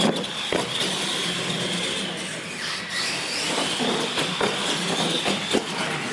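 Radio-controlled monster trucks racing, their electric motors and gears whining high, the whine dipping and then rising again partway through. Several sharp knocks, the last two in the second half, as the trucks hit the ramps and land.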